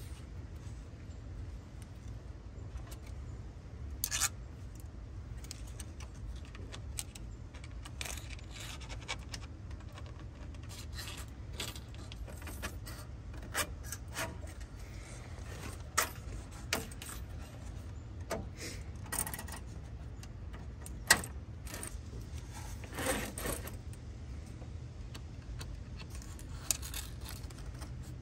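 Hands handling fan wiring, a plastic zip tie and small metal mounting parts at a radiator: scattered light clicks, scrapes and rattles, with several sharper clicks standing out, over a steady low rumble.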